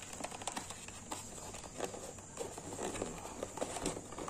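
Cardboard packaging handled by hand: scattered light taps, clicks and rustles as the box flaps and insert are moved.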